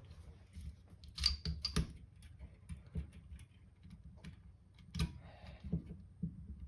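Small metallic clicks and scrapes of 1911 pistol parts being handled as the recoil spring is worked back into the slide, with a sharp cluster of clicks about a second in and another sharp click about five seconds in.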